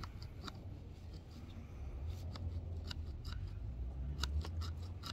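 Junior hacksaw cutting through the plastic of a car's front grille in short scraping strokes. There are two strokes at first, then after about two seconds a quicker steady run, over a low rumble.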